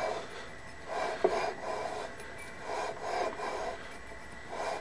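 Aluminum flywheel twisted back and forth by hand on the crankshaft of a GX200-clone engine with lapping compound between them, a gritty rasping rub in spurts of a few strokes with short pauses. The compound is grinding the flywheel bore and crank taper together for full contact.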